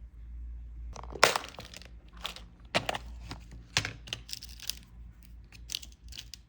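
Paper eye sheet and a small crazy-glue bottle being handled up close: irregular soft crinkles and sharp little clicks, the sharpest about a second in.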